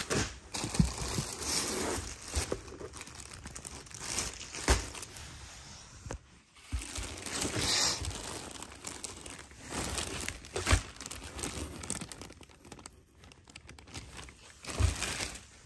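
Clear plastic poly bag crinkling and rustling as it is handled, with a few sharp knocks from handling the cardboard shipping box.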